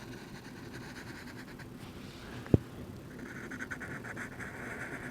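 Felt-tip Sharpie marker scratching back and forth on drawing-pad paper while colouring in, the strokes busier in the second half. A single sharp knock about halfway through.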